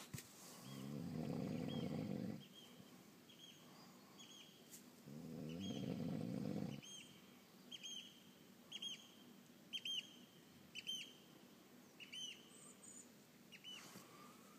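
A man snoring: two long, rasping inhaled snores, one near the start and one about five seconds in. Between and after them come short high chirps, about one a second.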